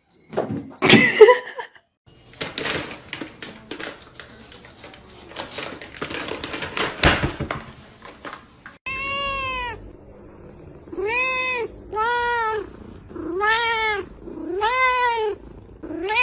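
A domestic cat meowing five times, each meow rising and then falling in pitch. Before the meows come a few seconds of scuffling and clicking noise.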